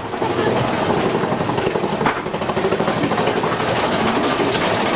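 Big Thunder Mountain Railroad mine-train coaster climbing its lift hill, the lift chain clattering in a fast, steady rattle under the cars.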